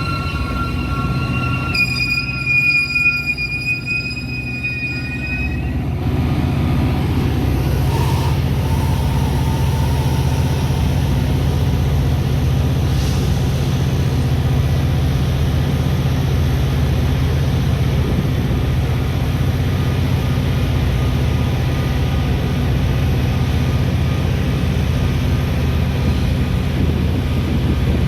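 Metra commuter train wheels squealing with several steady high-pitched tones for about the first six seconds, then giving way to a steady low rumble of the train rolling along the rails.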